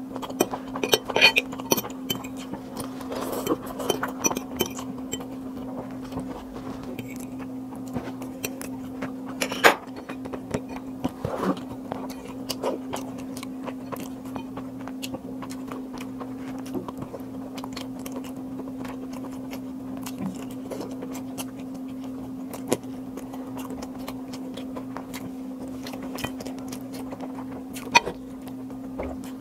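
Close-up eating sounds: noodles slurped and chewed, with a fork clinking against a plate, full of small clicks and a sharp clink about ten seconds in, then quieter chewing and hand-eating. A steady low hum runs underneath.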